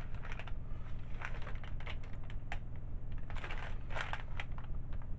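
Hands moving soap donuts about on a parchment-lined baking sheet: scattered soft taps and parchment-paper crinkles, some in quick clusters, over a steady low hum.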